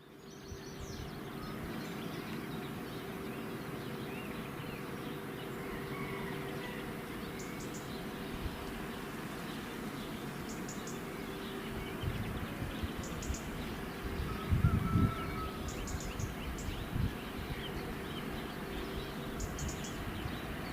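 Outdoor ambience: scattered bird chirps and calls over a faint steady hum. About fifteen seconds in there are a few low thumps.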